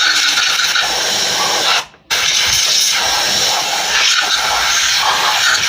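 Compressed-air blow gun blasting dust out of a motorcycle air filter and its housing: a loud, steady hiss that cuts off for a moment about two seconds in, then starts again.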